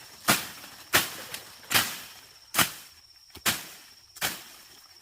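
Six sharp thuds at an even pace, one a little under every second.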